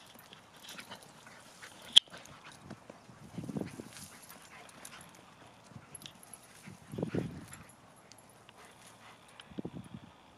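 Bernese mountain dog spinning in circles on a dirt trail, its paws scuffing the ground in three short bursts, with a single sharp click about two seconds in.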